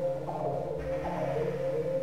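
Ambient electronic music: sustained synthesizer tones with a steady low drone under a higher line of shifting notes, all with a fast pulsing texture.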